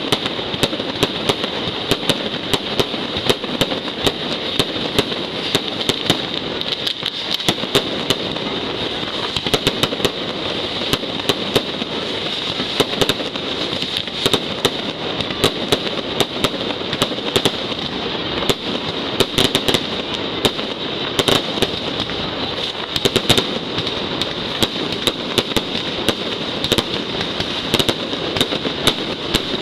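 Mascletà firework barrage: a dense, unbroken stream of firecracker bangs and crackling, with sharp louder reports scattered all through it and aerial fireworks bursting overhead.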